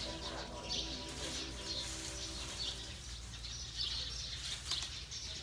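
Bull Asian elephant making its hummed 'singing' call, one steady pitched tone rich in overtones that fades out about three seconds in. Small birds chirp throughout.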